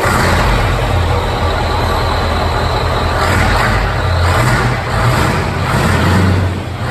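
Scania V8 truck engine running loud, a deep steady drone with a rough exhaust wash over it that swells and eases several times.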